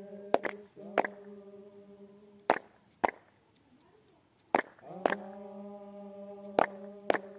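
Group of men chanting together in long held notes, with loud sharp strikes in pairs about every two seconds. The chant breaks off for a moment around the middle, then resumes.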